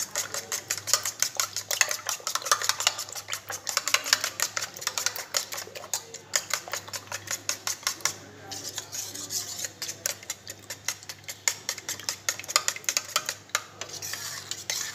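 Raw eggs being beaten briskly in a metal bowl with a metal utensil: rapid clicking of the utensil against the bowl, several strokes a second, with a few short pauses.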